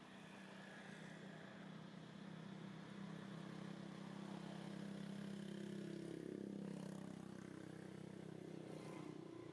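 Faint engine drone of a distant vehicle, swelling slowly toward the middle and fading away near the end, as it would when passing by.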